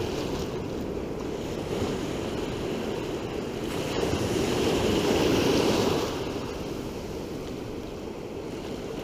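Ocean surf washing around the shallows; a wave breaks and rushes in, loudest from about four to six seconds in.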